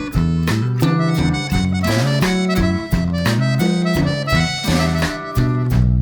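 Instrumental background music: held melody notes over a bass line that changes pitch about every half second.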